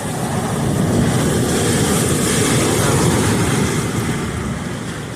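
Storm wind and torrential rain, a steady rushing noise that swells in a gust about a second in and eases off near the end.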